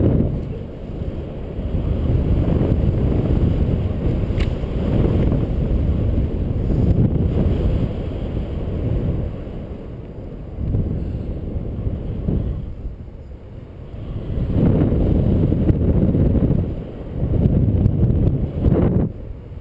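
Airflow buffeting the microphone of a camera on a paraglider in flight: a loud low rumble of wind noise that swells and drops in gusts, easing for a few seconds past the middle. A brief click about four seconds in.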